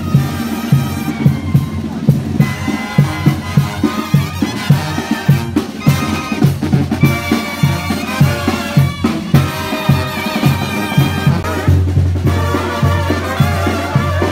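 Brass band music with a steady drum beat about twice a second.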